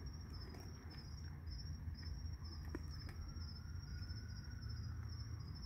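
Crickets chirping in a continuous high, pulsing trill over a steady low hum, with a few faint clicks.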